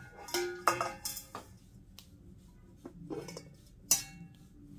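Dishes and cutlery clinking and clattering as room-service plates are handled: a quick run of ringing clinks in the first second and a half, then two more knocks around three and four seconds in.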